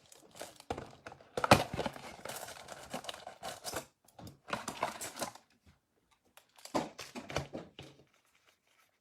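Trading card box packaging being torn open and crinkled by hand, in irregular rustling bursts and sharp tears with short pauses between them.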